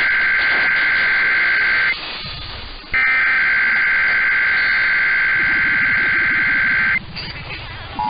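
Emergency Alert System SAME header: harsh, warbling digital data tones received over AM radio. One burst cuts off about two seconds in and, after a noisy pause of about a second, another runs until about seven seconds in, the coded start of a Required Monthly Test.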